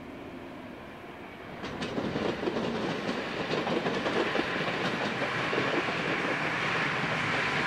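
Endeavour diesel multiple-unit railcars passing on the track. A faint steady hum gives way, about one and a half seconds in, to louder running noise, with the wheels clicking over the rail joints.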